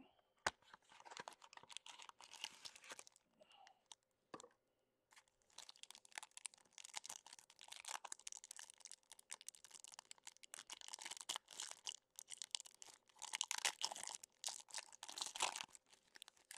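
Faint crinkling and tearing of a trading-card pack wrapper and cardboard mini box being opened by hand, in bursts with many small clicks, and a short sharp click about half a second in.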